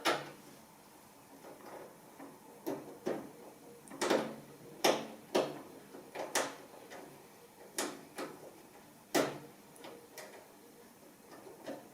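Light clicks and knocks of hands handling a desktop PC case and its parts, about a dozen, irregularly spaced.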